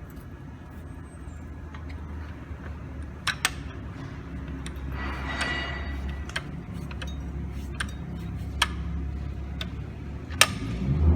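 Bulldog drill press running with a steady low motor hum, with scattered clicks and knocks from the machine being worked. About five seconds in there is a brief higher grinding noise lasting a second or so.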